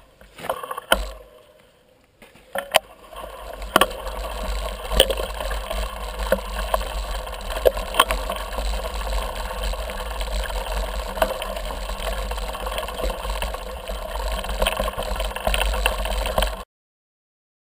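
Mountain bike riding down a dirt forest trail, heard from a camera on the moving rider: wind rumble on the microphone, tyre noise on the dirt and frequent sharp clicks and rattles from the bike over bumps. It starts quieter, picks up about two seconds in, and cuts off suddenly near the end.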